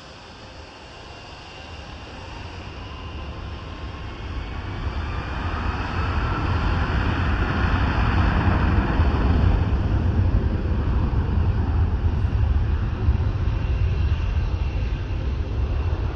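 Airliner's jet engines growing louder over about six seconds into a loud, deep rumble that holds, with a whine that shifts in pitch near the loudest point.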